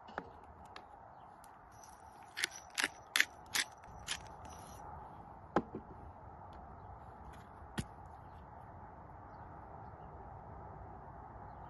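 Spice bottles handled over a glass bowl of marinade: a quick run of about five sharp clicks, then two more single clicks, over a faint steady outdoor background.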